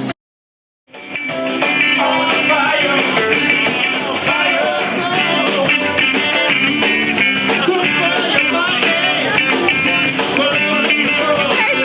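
Band music with prominent guitar, starting after about a second of silence.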